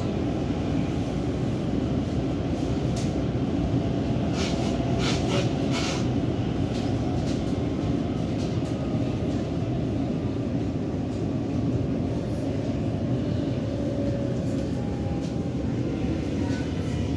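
Helsinki Metro train running at speed, heard from inside the carriage: a steady low rumble of wheels on rail and running gear, with a cluster of sharp clicks and rattles about four to six seconds in.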